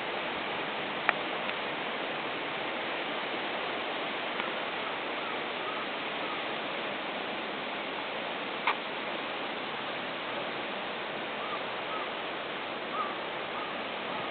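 Strong wind making a steady rushing noise, with two sharp clicks, one about a second in and one past the middle, and a few faint short chirps.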